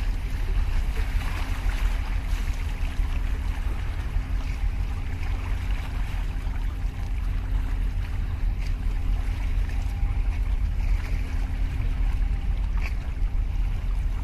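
Wind buffeting the microphone with a low rumble, over sea water lapping and sloshing among concrete breakwater blocks, with a faint steady hum underneath.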